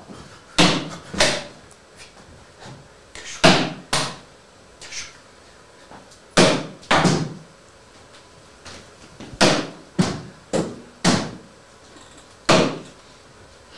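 Heavy booming bangs, like pounding on a door, about ten of them, in groups of two to four spaced roughly half a second apart, with pauses of a couple of seconds between groups.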